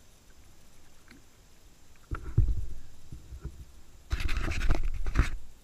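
Kayak paddling noises: a low rumbling thump about two seconds in, then about a second of loud rushing, scraping noise with a few sharp knocks near the end.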